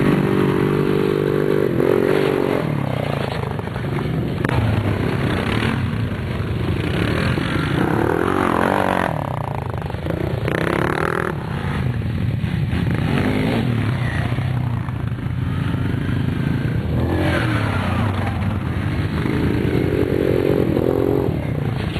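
Quad bike (ATV) engines running and revving, pitch rising and falling again and again as the riders accelerate and ease off.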